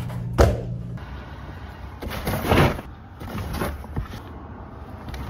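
Steady hum of running laundromat dryers with a sharp thump about half a second in. It cuts off about a second in and gives way to a cardboard box shifting and scraping on a car's boot carpet, with a few rough rubbing sounds and a light knock.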